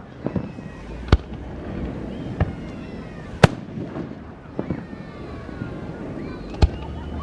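Fireworks going off: a series of about six sharp bangs at uneven intervals, the loudest about three and a half seconds in and another near the end, over steady background noise.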